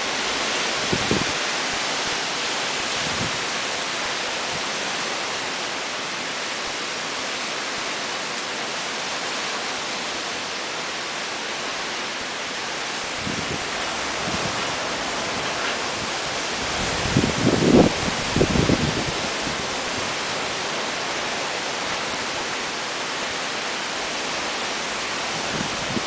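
Heavy typhoon rain pouring in a steady hiss, driven by strong wind. About two-thirds of the way in, a few brief low thumps from wind gusts stand out as the loudest moments.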